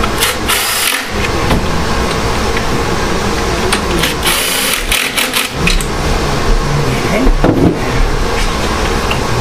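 Hand ratchet on a long extension turning bolts in a car's engine bay, in two spells of quick clicking, over a loud, steady background noise.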